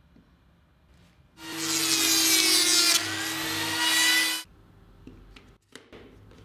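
Lamello Zeta P2 joiner running and milling a P-System groove into a mitred panel edge for about three seconds. Its pitch and level dip about halfway, then pick up before it cuts off abruptly. A few light clicks and knocks of handling follow.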